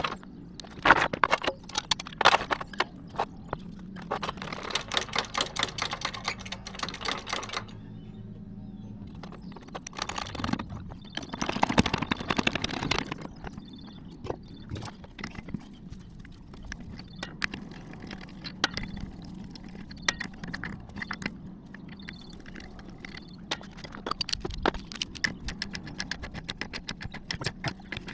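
A car jack being worked to raise the rear of a Hyundai Santa Fe: a long run of short metallic clicks and knocks, with a louder scraping stretch about eleven seconds in.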